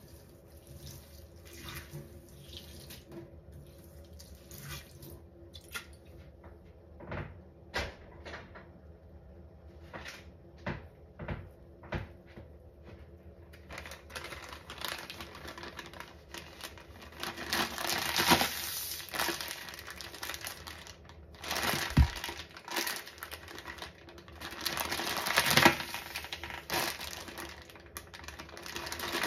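Pine-Sol lavender cleaner poured from its bottle onto a sponge in a stainless steel sink, followed by a series of separate taps. From about halfway, a plastic bag of small foam sponges crinkles and rustles as it is handled, with a sharp knock partway through.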